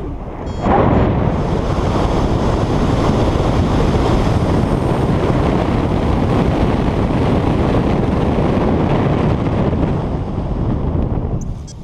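Wind rushing over the camera microphone on a paraglider in flight: a steady, loud rush that swells up about a second in and falls away near the end.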